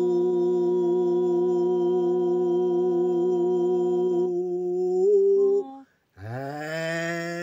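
Two voices holding a long, steady hummed drone in a chant style, one on a low note and one on a higher note. The drone breaks off about five and a half seconds in. After a moment of silence a new low voiced note slides up and settles into a held tone.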